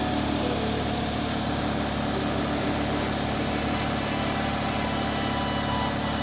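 Air compressor running steadily, a constant mechanical hum.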